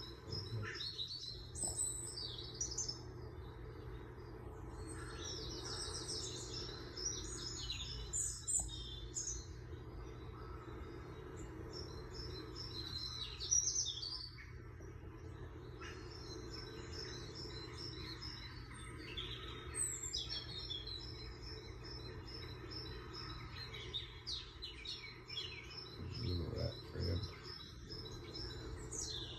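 Small birds chirping and twittering almost continuously, many quick high calls overlapping, over a steady low hum.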